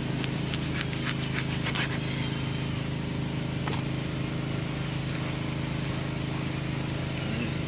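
Knife chopping through a large fish on a wooden cutting board: a quick run of sharp knocks in the first two seconds and one more a little before four seconds in. Under it, a steady low motor hum.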